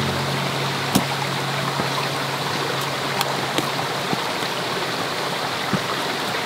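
Running water of a stream, a steady rush with a few sharp splashes. A low held tone sounds under it for the first four seconds or so.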